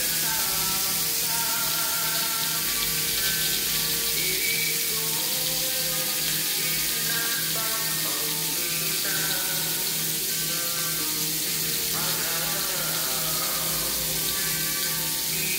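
Hot dogs sizzling in oil in a frying pan, a steady frying hiss, with background music with a steady beat playing over it.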